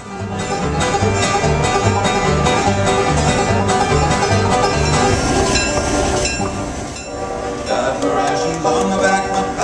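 Instrumental bluegrass played live on banjo, acoustic guitar and upright bass: rolling banjo picking over strummed guitar, with the bass plucking a steady beat.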